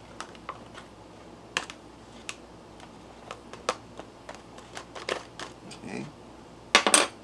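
A fork clicking and scraping inside a foil Mylar pouch as rehydrating freeze-dried fried rice is stirred, with the pouch crinkling. A louder burst of clatter comes near the end.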